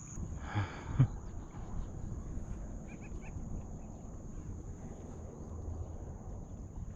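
Wind on the microphone and water sloshing around a kayak, a low steady rumble, with a brief call about half a second in and a few faint chirps around three seconds.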